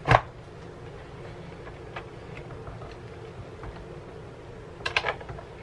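Clunk of a flip waffle maker's lid and handle being closed and swivelled, then a quick cluster of clicks about five seconds in as it is handled again. A faint steady hum runs underneath.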